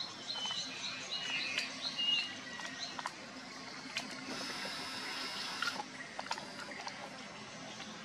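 Pond water stirred by small remote-control toy animals swimming, with faint clicks. Birds chirp in the background: a quick run of short chirps in the first two seconds, then a few whistled notes.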